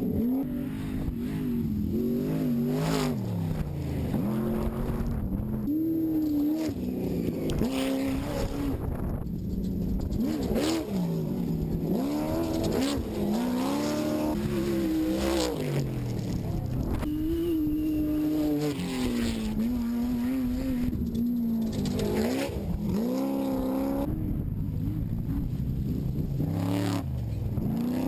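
Off-road race trucks' engines revving hard and dropping off again and again as they pass, the pitch rising and falling every few seconds, with a few short sharp knocks.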